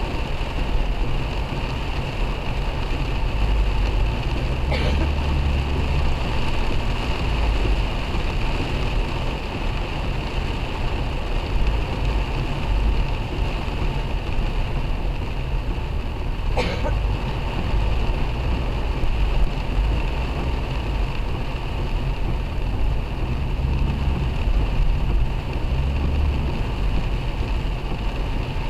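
Heavy rain falling on a car's windscreen and roof, mixed with steady road and engine noise heard from inside the cabin. Two short clicks come about 12 seconds apart.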